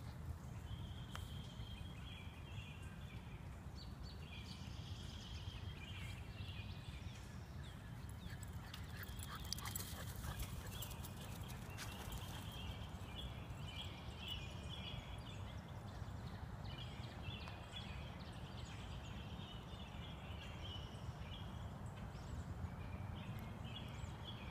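A puppy galloping and scrambling about on grass, its paws thudding in an uneven rhythm, over a steady low rumble on the microphone.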